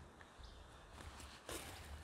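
Faint, scattered soft clicks and rustling, with a louder rustle about one and a half seconds in.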